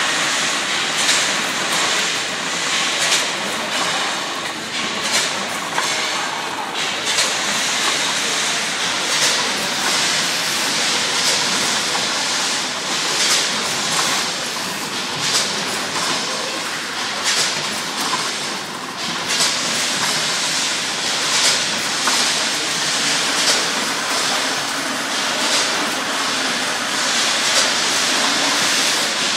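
PFM ZC1 vertical form-fill-seal bagging machine with a 10-head weigher running while it bags almonds. It makes steady mechanical noise, with a short sharp burst of hiss and clatter about every two seconds.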